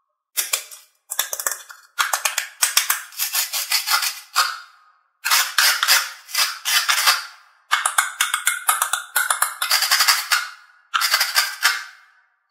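Velcro on a toy cutting-fruit melon ripping apart in a series of short, raspy crackling tears.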